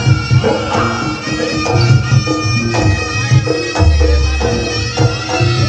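Live jaranan music: a slompret (Javanese shawm) plays a loud, reedy melody over kendang drum strokes, with a deep gong stroke ringing about four seconds in.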